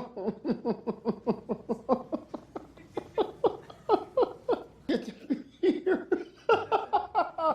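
A person laughing hard in a long, rapid string of 'ha' sounds, about four or five a second, each dropping in pitch.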